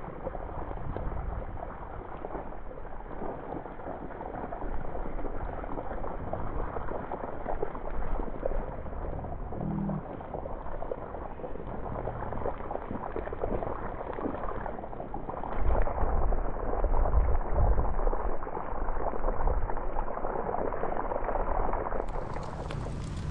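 Whole tilapia frying in oil in a pan over a wood fire: steady sizzling and bubbling, sounding dull with no high treble.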